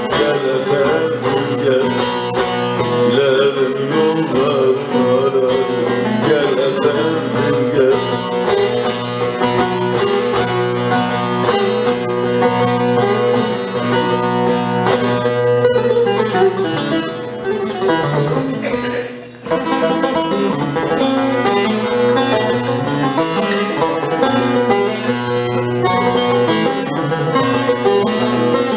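Bağlama (Turkish long-necked saz) playing an instrumental passage, a continuous plucked melody with a short break about two-thirds through.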